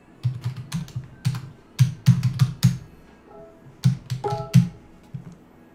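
Computer keyboard keys being typed in quick, irregular runs of keystrokes, with a short pause near the middle.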